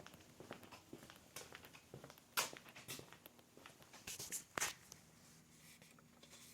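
Faint scattered clicks and light taps of handling, with two louder short knocks, one a little over two seconds in and one about four and a half seconds in; no engine running.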